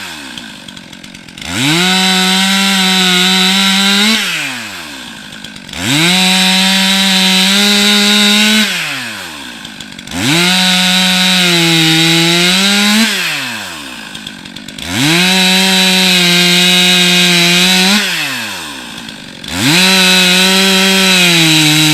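STIHL MS 362 C-M two-stroke chainsaw cutting through wood in repeated passes. Five times the engine revs up to full throttle, holds under load for about three seconds with its pitch sagging a little mid-cut, then drops back toward idle.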